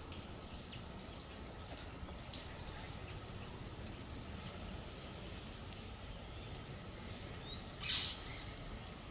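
Outdoor birdsong ambience: faint, scattered high chirps from small birds over a steady low rumble, with one brief louder burst about eight seconds in.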